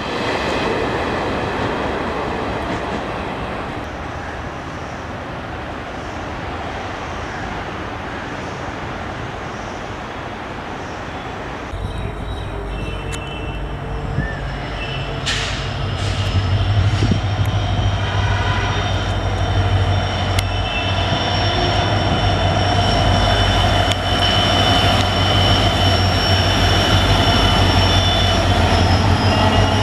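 A train running on rails, with high steady squealing tones over the rolling noise. About twelve seconds in, the deep steady hum of an EMD diesel locomotive sets in and grows louder, joined by further whining tones and a few sharp clicks.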